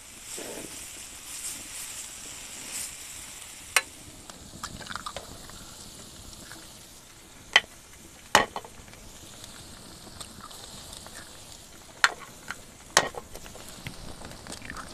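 Chopped peppers, onion and tomato sizzling in a frying pan on a wood stove, a steady frying hiss. Several sharp knocks cut through it, as eggs are cracked against the pan and dropped in.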